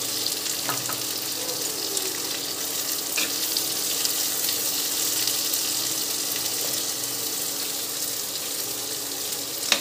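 Chopped onions sizzling in hot oil in a kadai, just added and starting to fry, a steady hiss. A metal slotted spoon stirring them gives a few short taps and scrapes against the pan: one about a second in, one a little after three seconds, one near the end.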